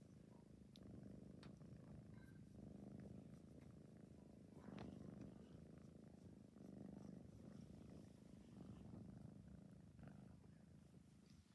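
Tabby cat purring softly and steadily, the low buzz swelling and easing with each breath in and out, the content purr of a cat being stroked under the chin.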